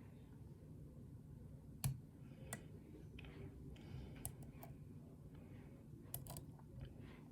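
Lock picking in a pin-tumbler challenge lock: the pick scratches and taps at the pins under tension, with a few sharp clicks, the loudest about two seconds in. The core is counter-rotating on pin 2 as that pin is worked, the sign of a security pin.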